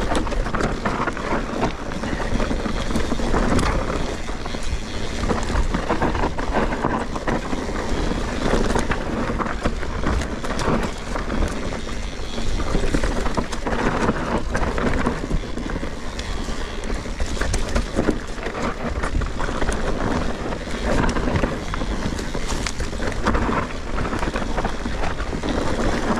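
Mountain bike riding fast down a dirt woodland trail: a continuous rough rumble of tyres on dirt and roots, with many sharp knocks and rattles from the bike jolting over bumps.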